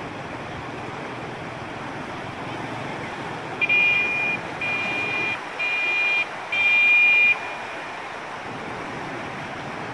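Canal water rushing steadily through the bridge piers. Near the middle, four loud high-pitched beeps sound in quick succession, each under a second long, like a vehicle horn.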